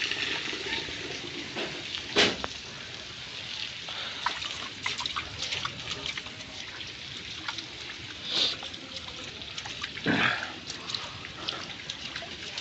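Hailstorm: a steady hiss of rain and water with scattered sharp ticks of hailstones and drops landing. There are two short, louder sounds about two and ten seconds in.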